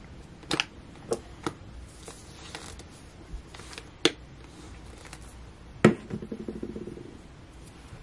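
A few sharp clicks and taps of small objects being handled, the loudest about six seconds in, followed by a brief rapid rattling patter.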